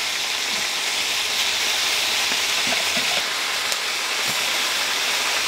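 Chicken pieces frying in hot fat in a pan, a steady sizzle, with a few light clicks and scrapes of a metal spatula as the pieces are turned.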